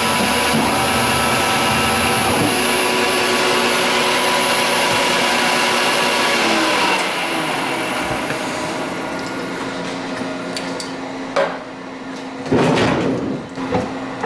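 Grizzly G0602 CNC lathe boring the inside of an aluminium tube with flood coolant spraying, a steady loud machining noise. About seven seconds in the cutting and coolant noise drops away, leaving the spindle winding down with a low hum; near the end there is a sharp click and a clatter as the machine is handled.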